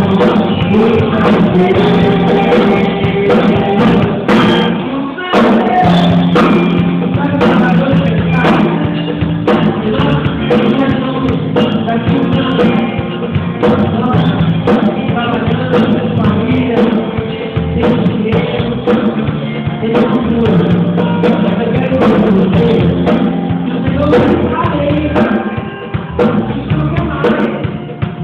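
Band music with singing and a steady drum beat.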